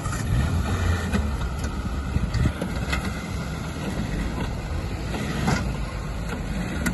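Suzuki SJ 4x4's engine running off-road with a steady low drone, with a few sharp knocks scattered through it.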